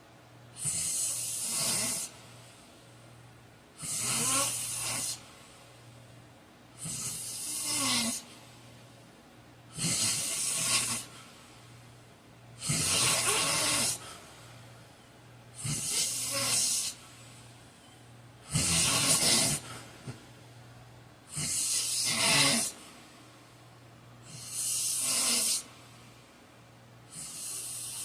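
A man snoring heavily in his sleep: about ten loud, rasping snores, each lasting roughly a second, in a regular rhythm about every three seconds, with quiet breathing between them. A steady low hum runs underneath.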